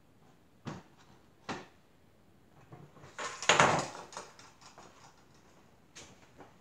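Two short thumps as soft clay tiles are set down on a worktable. Then a louder, longer clatter of wooden slats being laid on the tabletop, with a few lighter knocks after.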